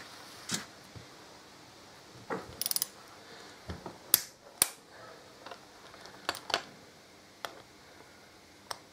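Torque wrench ratcheting and clicking while tightening brake caliper bolts: a quick run of ratchet clicks about two and a half seconds in, then sharp metal clicks, the loudest around four seconds in, with a few more scattered later.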